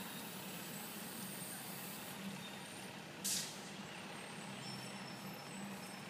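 Steady street-traffic noise with a short, sharp hiss of a bus's air brakes about three seconds in.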